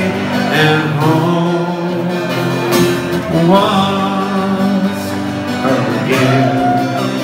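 Live solo performance of a country-folk song: an acoustic guitar strummed while a man sings long, drawn-out notes.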